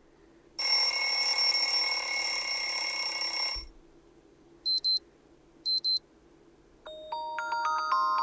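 Xiaomi Mi 10T alarm tones previewed one after another. First a steady electronic buzz for about three seconds, then two short high double beeps about a second apart, then a melody of short ringing notes that starts near the end.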